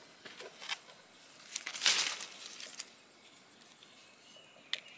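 Rustling and crunching of dry leaves and forest-floor litter, loudest about two seconds in, with a few light snaps.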